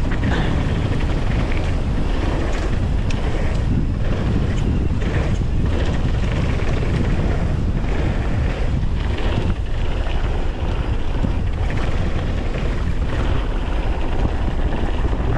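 Wind buffeting the camera microphone as a downhill mountain bike descends a trail at speed, with a steady low rumble and scattered rattling clicks from the bike over the terrain.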